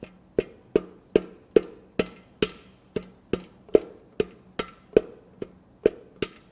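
Steady series of sharp metal knocks, about two and a half a second, each with a short ring: a tool striking the broken half of a connecting rod and piston to drive it out of the 1GR-FE V6's aluminium cylinder bore.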